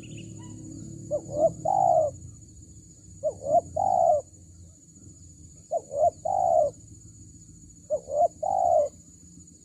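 Spotted dove cooing: four phrases of two or three short coos running into a longer, drawn-out coo, repeated about every two seconds. A steady high-pitched hum runs faintly underneath.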